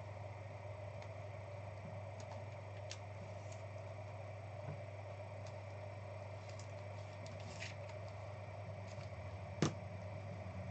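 Steady low hum of room tone with a few faint scattered ticks from cards and packaging being handled, and one sharper click near the end.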